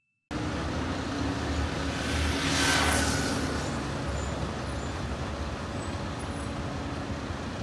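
Road traffic noise from a street, with one vehicle passing that builds and fades about three seconds in.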